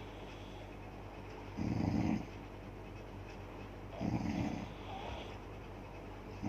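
A woman snoring, one short snore on each breath, about every two and a half seconds.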